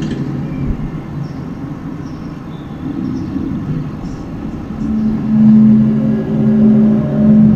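Unexplained low droning outdoors: a deep, groaning hum made of several steady low tones. About five seconds in, a louder steady tone swells up and pulses a few times, the kind of sky sound likened to trumpets.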